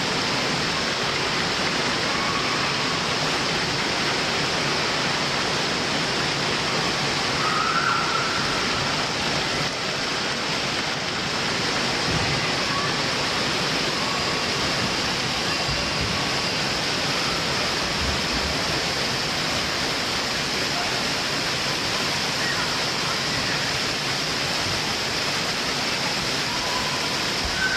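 Steady rush of water pouring down water slides and into their run-out troughs, with a few faint distant voices.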